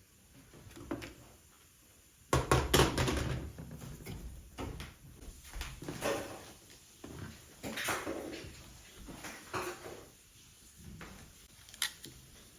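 Hands working the plastic and metal housing of a car radio display unit apart, making irregular knocks, clicks and clatter. The noises begin about two seconds in, loudest just after they start, with a sharp click near the end.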